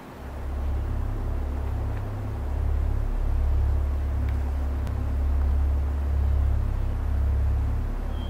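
A steady deep rumble that swells up about half a second in and wavers in level.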